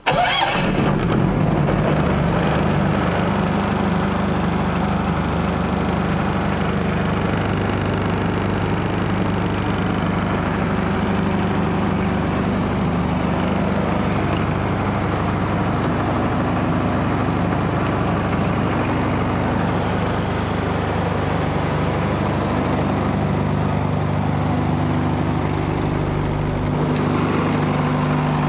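KawaKenki KK-30KVA diesel generator starting on the key, catching at once, then running steadily at its governed speed with a low, even drone.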